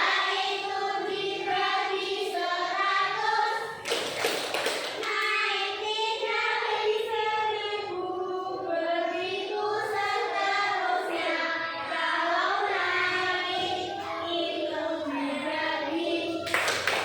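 A group of children singing a song together in unison. A short noisy burst comes about four seconds in, and another just before the end.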